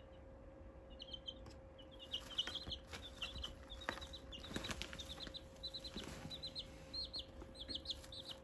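Young chicks peeping: short high chirps, several a second, starting about a second in and coming thicker toward the end, over a faint steady hum.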